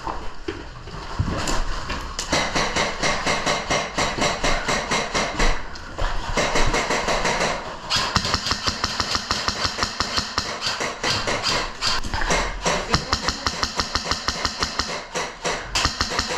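Airsoft guns firing in long rapid streams of sharp, evenly spaced clicks, with short lulls about a second in and about six seconds in.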